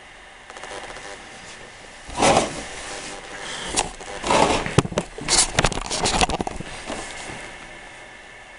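Handling noise from the camera being picked up and moved: a run of irregular scraping, rubbing and sharp knocks starting about two seconds in and dying away after about five seconds.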